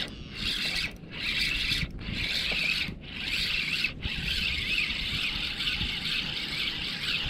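Shirt-sleeve fabric rubbing and scraping against the camera microphone, with short breaks about once a second for the first few seconds.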